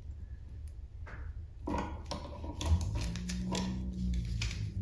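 Metal clicks and handling rustles from two large pliers working an iron chandelier chain as a pried-open chain link is squeezed shut and the pliers come off. The clicks start about a second and a half in.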